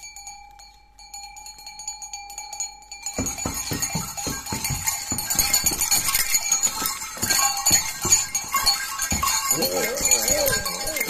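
Bells on a Krampus costume: at first a faint, steady ringing tone, then from about three seconds in loud, irregular clanking as the wearer moves. A brief wavering growl comes near the end.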